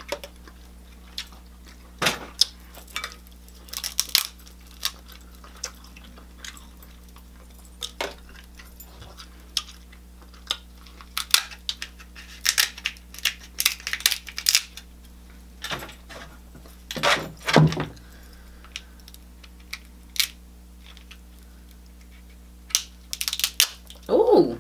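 Close-up eating sounds: shrimp and crab shells being cracked and peeled by hand, with irregular sharp clicks and snaps, and chewing in between.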